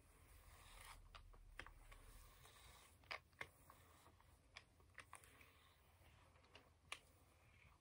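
Near silence, with faint scattered clicks and rustles of a hair straightener clamping and sliding through long hair.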